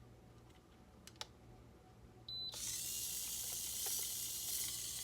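A couple of faint clicks and a short high beep, then a tiny RC car's electric motor and gears start suddenly and keep up a steady high whir. The throttle trim is set all the way down, so the car is running by itself in reverse.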